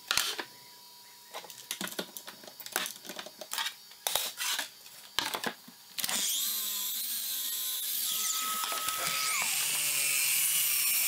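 Sharp clicks and knocks as a metal straightedge, clamp and board are handled on a sliding miter saw's table. About six seconds in, a power tool starts abruptly and runs on with a steady whine and hiss: the miter saw's motor spinning up for a cut.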